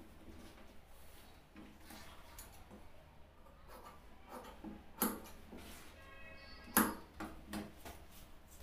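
Large steel tailor's shears cutting cotton shirting on a table, with soft rustling of the cloth and two sharp clacks of the metal shears, about five seconds in and again near seven seconds.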